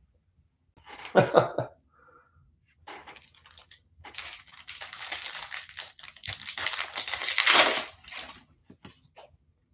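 Foil wrapper of a baseball card pack crinkling and tearing as it is ripped open by hand, loudest near the end. A brief loud noise comes about a second in.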